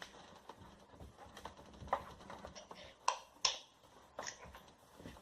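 Irregular sharp clicks and taps from stirring glue and dye in a container for slime, with the loudest knocks about two, three and three and a half seconds in.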